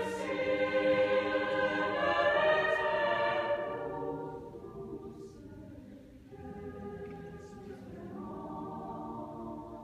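High school choir singing held chords, loud for the first three or four seconds, then much softer, with quiet sustained chords near the end.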